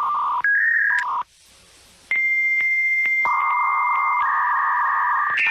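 Electronic beep tones, like telephone keypad tones: short beeps that jump between pitches in the first second, then a long steady high tone from about two seconds in, joined by a lower buzzy tone that later shifts up in pitch and cuts off near the end.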